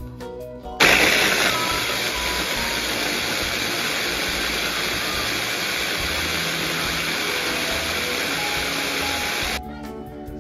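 Keylitos electric food chopper puréeing cherry tomatoes: the motor starts suddenly about a second in, runs steadily for about nine seconds and cuts off near the end. Background music plays underneath.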